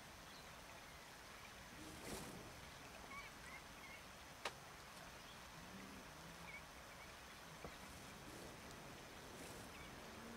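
Quiet wetland ambience with faint, scattered short bird chirps. There is a sharp click about halfway through and another fainter one near the end.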